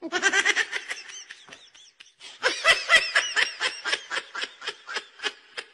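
A person laughing in rapid, high-pitched ha-ha pulses: one run that fades out, a short pause, then a longer run that tapers off near the end.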